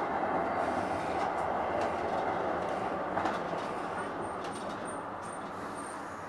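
Munich P-type tram running on its rails, heard from inside the car: a steady rolling rumble with occasional clicks. It grows gradually quieter, and a few faint high squeaks come in the second half.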